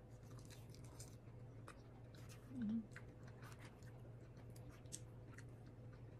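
Faint chewing of baked sushi wrapped in nori, with scattered light clicks of a spoon in a foil tray. A brief hummed voice sound about two and a half seconds in.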